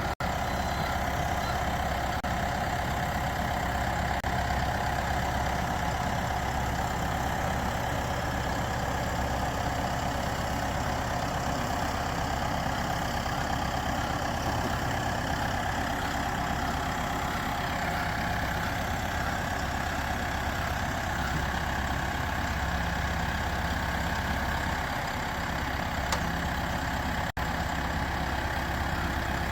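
Tractor engine running steadily at idle, with no change in speed.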